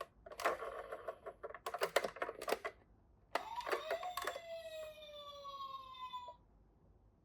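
Toy minicars clattering as they roll down a plastic slope: a rapid run of clicks and rattles. About three and a half seconds in, a single toy sound with many overtones starts, rises briefly, then slides slowly down in pitch for about three seconds and stops.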